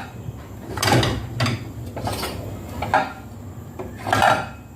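Kitchen utensils knocking and scraping against dishes and pans: about five short strokes spread over a few seconds.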